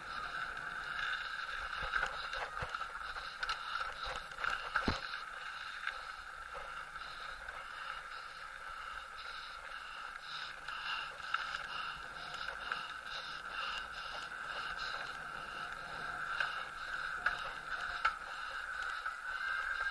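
Riding noise from a bicycle rolling along a paved lane: a steady whir, with a few short knocks and rattles from bumps in the first few seconds.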